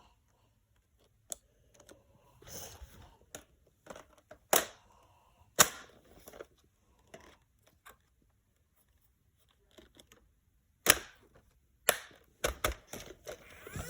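Sharp plastic clicks and short clatters at irregular intervals from handling a Nerf Ultra Elite Strife blaster and its magazine while clearing a magazine jam.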